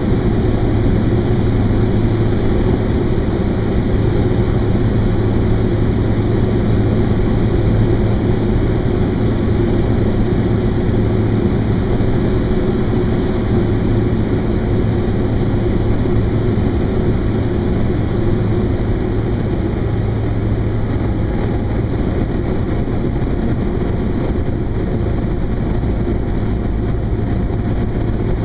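Thrush crop-duster's engine and propeller running steadily at working power, a loud low drone heard from inside the cockpit.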